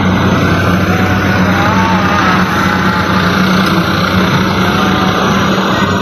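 Road traffic passing close by: vehicle engines running with a steady low drone amid tyre and road noise.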